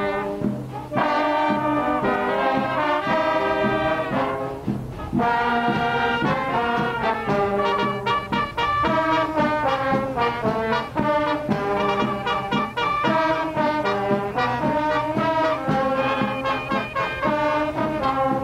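Band music with brass to the fore, playing a tune in held chords over a moving melody, with short breaks about a second and about five seconds in.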